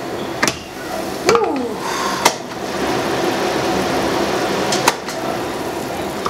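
Sliced shallots sizzling in hot oil in a stockpot, the steady frying noise growing louder about three seconds in, with a few sharp clinks of utensils and the pot lid.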